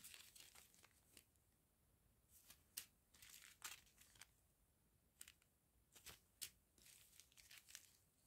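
Small plastic zip-lock bags of round diamond painting drills crinkling faintly as they are handled and turned over, in short irregular clusters of crackles.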